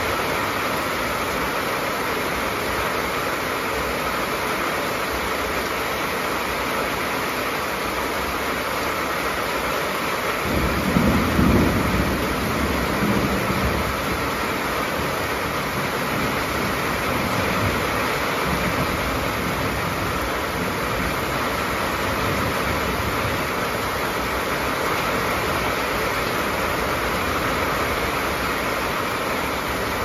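Rain falling on a corrugated metal roof, a steady hiss, with a low rumble of thunder starting about ten seconds in and fading over several seconds.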